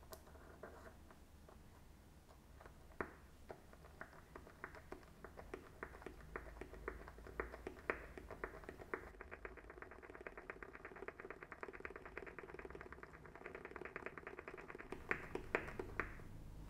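Rapid light clicking and tapping of small hard parts, sparse at first, then many clicks a second, with a few sharper clicks near the end.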